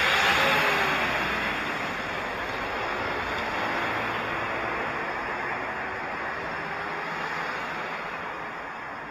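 Wind rushing over the microphone while riding a bicycle along a road, with road traffic. A small truck going by close alongside makes the loudest swell at the very start.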